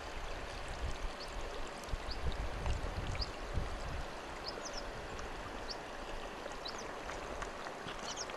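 Steady outdoor hiss, with low rumbling bumps on the microphone in the first half and scattered faint, short high chirps.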